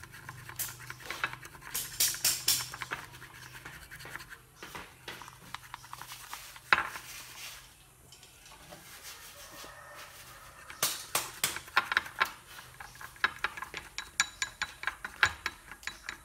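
Chopsticks beating an egg mixture in a ceramic bowl: scraping and rapid clicking against the bowl in spells, fastest in the last few seconds. A faint low hum runs under the first half.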